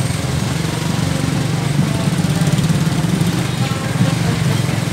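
Motorcycle engine running steadily close by, a low, fast-pulsing hum.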